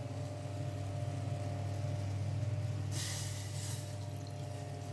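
Milk poured from a carton into a steel pot on a gas stove, with a brief rushing splash about three seconds in, over a steady low hum.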